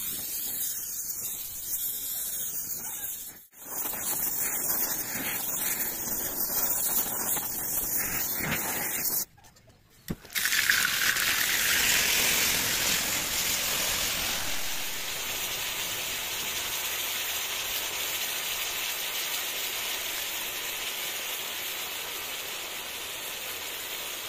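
Gas torch flame hissing steadily as it heats a steel bevel gear. After a brief break, the hot gear is plunged into a tin of oil: a sudden loud sizzling hiss as the oil flares, easing into a steady sizzle as the gear is oil-quenched.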